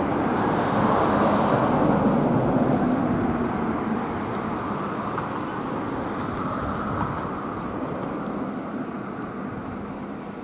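Traffic rumble, a steady noise that is loudest at the start and slowly fades away, with a short hiss about a second in.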